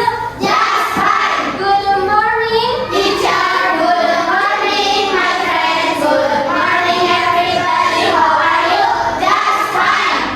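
Group of children singing a song together.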